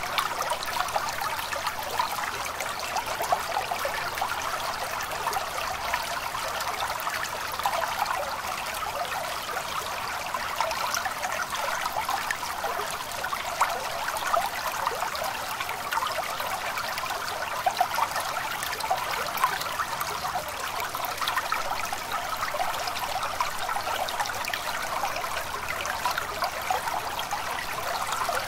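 Small stream trickling and babbling steadily, an even flow of water with constant small splashes.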